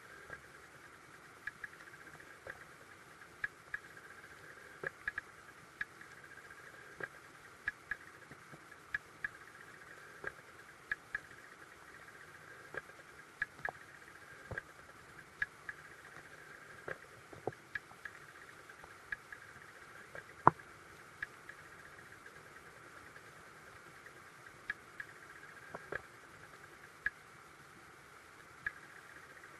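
Underwater sound of a creek picked up by a submerged camera: a faint steady hiss with sharp, irregular clicks and ticks, about one or two a second, one of them much louder about two-thirds of the way through.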